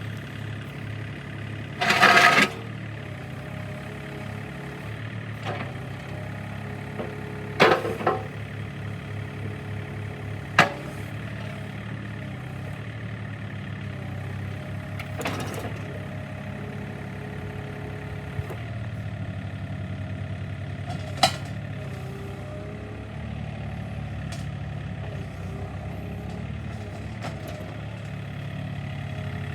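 A SANY mini excavator's diesel engine running steadily, with several loud, sharp bangs spread through, the loudest about two seconds in.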